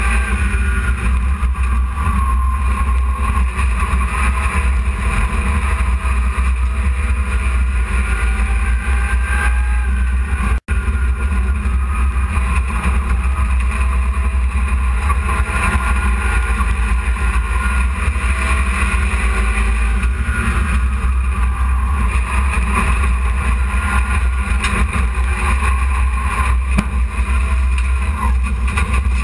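Hobby stock race truck's engine running hard around a dirt track, heard from inside the cab. It makes a loud, steady drone with a heavy low rumble and a constant rushing noise. The sound cuts out for an instant about ten seconds in.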